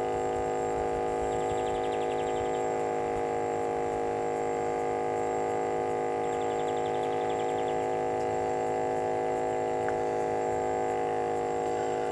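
A steady hum made of several held tones, unchanging throughout. A faint high trill comes twice, about two seconds in and again about seven seconds in.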